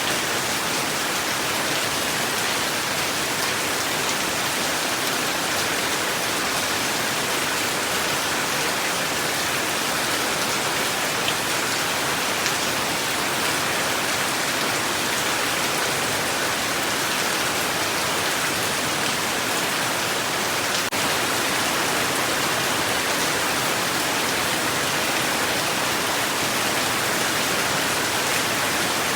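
Steady heavy rain falling, an even hiss of many drops without letting up.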